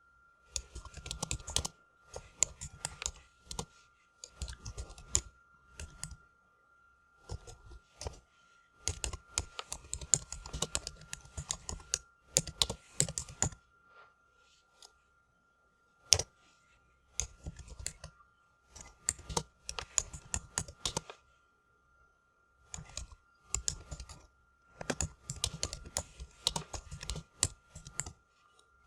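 Typing on a computer keyboard: quick runs of key clicks lasting a second or a few seconds, broken by short pauses. A faint steady high tone sits underneath.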